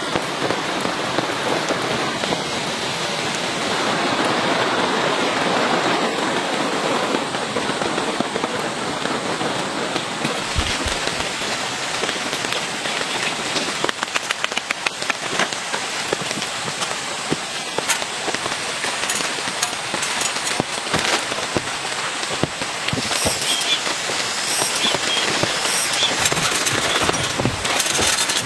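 Steady rain falling, with scattered small clicks and crackles through the middle and toward the end.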